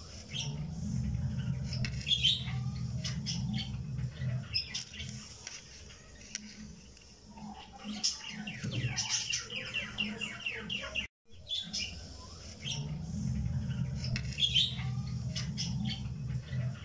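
Birds chirping and twittering over a low hum, in a recorded background track. The same stretch of sound repeats about every 12 seconds after a brief dropout, so the track loops.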